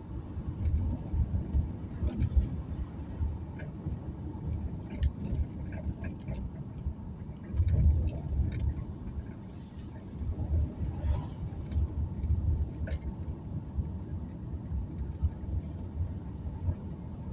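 Car driving along a road: a low, uneven rumble of engine and tyres that swells and dips, with scattered light clicks and rattles.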